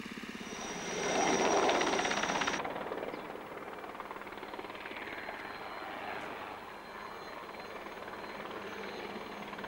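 Aérospatiale SA 315B Lama helicopter flying low over the vines while crop-spraying: rotor and turboshaft turbine sound. It swells to its loudest about a second and a half in, with a high whine that stops abruptly at about two and a half seconds, then runs on steadily.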